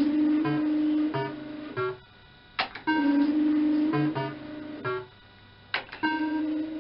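Electrocoin Bar-X fruit machine running a MAB ROM, playing game after game. Each spin starts with a sharp click, then a steady pitched tone holds while the reels spin, followed by a few short stepped tones as they stop. The cycle repeats about every three seconds.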